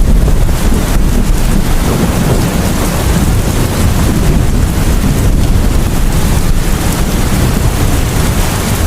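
Steady rain falling, with low thunder rumbling under it.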